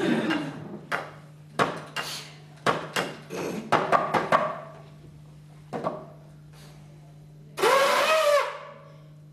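A performer's wordless mouth sounds voicing a pelvis-bone puppet: a falling vocal glide, a run of short clicks and noisy puffs, and about eight seconds in a loud squeal that rises and falls.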